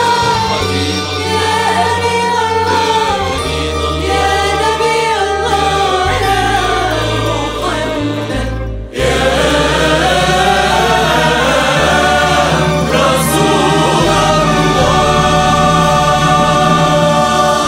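Arabic devotional song for the Prophet's birthday, a female voice singing with choir-like backing vocals over instrumental accompaniment and sustained bass notes. The music drops out for a moment about nine seconds in, then resumes.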